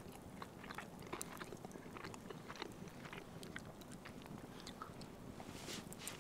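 Faint close-up chewing and biting of toast dipped in runny egg yolk, with many small scattered clicks.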